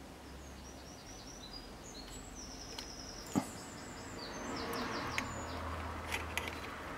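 Birds chirping in runs of quick, high chirps over a low background hum. A single sharp click comes about three and a half seconds in, and a few fainter ticks follow near the end.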